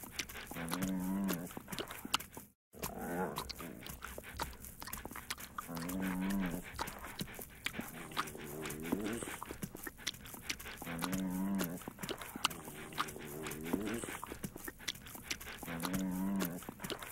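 Bulldog licking and smacking its lips with a rapid run of wet clicks. Short, low vocal calls come about every two and a half seconds, some bending in pitch. The sound cuts out briefly about two and a half seconds in.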